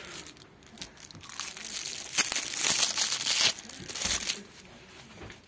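Clear cellophane wrapping on a serrated bread knife crinkling and rustling as it is handled and opened, in irregular bursts, loudest in the middle.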